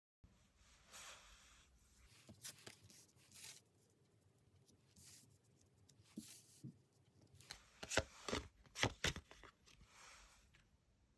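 Tarot cards being shuffled and handled, with soft swishes of cards sliding and a quick run of sharp card snaps about eight seconds in.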